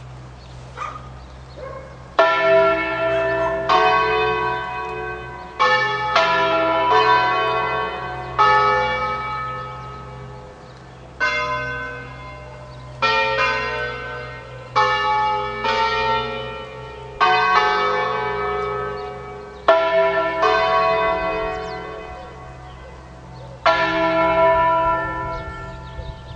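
Five Ambrosian church bells, tuned E3, F#3, G#3, A3 and B3, struck one after another, about fifteen strikes in all. The first comes about two seconds in. Each rings out and fades before or under the next, with gaps of one to three seconds, so the strikes form a slow, irregular sequence of different pitches.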